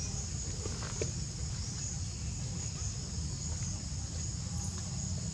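Steady, high-pitched insect chorus droning over a low rumble, with a faint tick or two about a second in.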